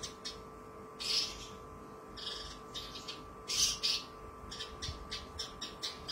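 Javan bush lark (branjangan) singing: short, sharp high notes about a second apart, quickening into a fast run of notes from about halfway through.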